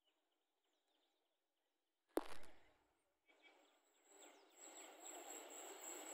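Near quiet with faint bird chirps, then a sudden thump about two seconds in. From about three seconds a hiss with a steady high whine grows steadily louder as an electric locomotive-hauled passenger train approaches on the rails.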